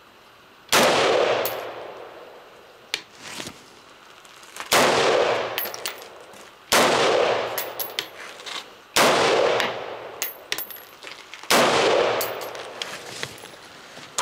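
Five single shots from an LFA AR-15 rifle, each a sharp crack with a ringing tail; the first comes about 4 s before the others, which follow roughly every 2 to 2.5 s. Between shots, light metallic clinks and brief high rings of spent brass casings landing.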